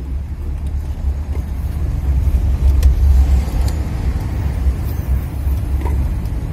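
Low, steady rumble of a car driving, heard from inside the cabin, swelling a little louder a couple of seconds in.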